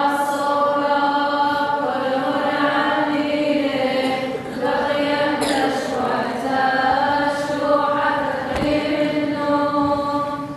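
Liturgical chant, sung slowly, with long held notes broken by short pauses.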